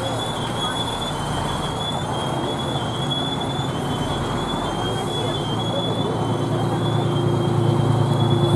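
Parade fire trucks' engines running at a slow roll, with the low engine rumble of a fire engine growing louder over the last few seconds as it pulls up close. A steady, slightly wavering high-pitched whine runs underneath.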